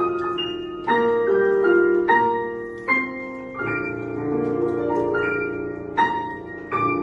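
Piano playing a slow passage of chords, each chord struck and left to ring and fade, a new one about every second or two.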